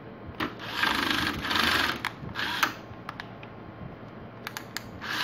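Electric screwdriver whirring in short bursts as it drives the mounting screws of a TV power supply board into the metal chassis, with small clicks between the bursts.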